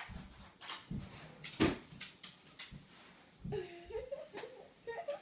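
A few light knocks and taps, then about three and a half seconds in a baby's short rising vocal sound, repeated briefly near the end.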